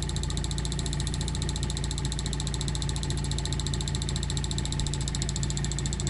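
Homemade reed-switch pulse motor running: rapid, even ticking over a steady hum as the coil pulses the six-magnet rotor spinning on its VHS head bearing. The motor is slowly losing speed as its supply capacitor runs down.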